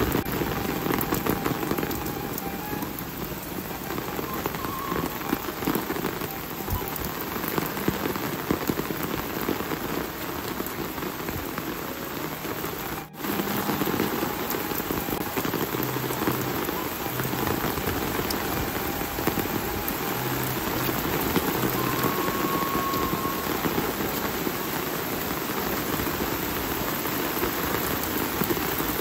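Steady rain falling on surfaces, a dense, even hiss of many drops. It drops out for an instant about halfway through.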